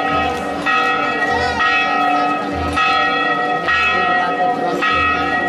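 Church bell tolling, struck over and over about once a second, each stroke ringing on into the next.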